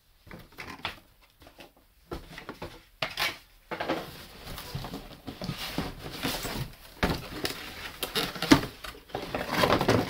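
Cardboard shoe boxes being shifted and pulled about inside a cardboard shipping carton by hand: irregular rustling, scraping and knocks, busier from about four seconds in.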